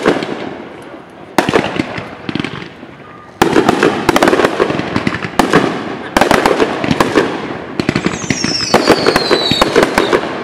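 Aerial fireworks shells bursting with sharp bangs, several over the span, and from about a third of the way in a dense run of crackling. Near the end a whistle falls in pitch over about a second and a half.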